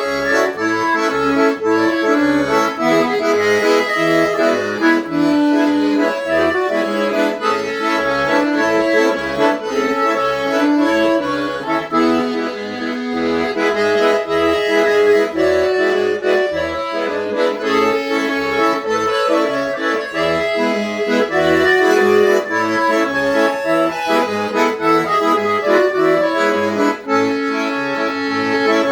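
Italian 80-bass accordion played solo: a lively melody over a regular bass-and-chord accompaniment from the left hand. The instrument has just been serviced.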